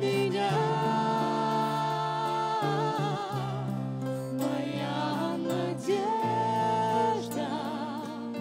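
Live church worship band playing a slow song: a woman's voice sings two long held notes with vibrato over keyboard, guitars and drums, with backing singers.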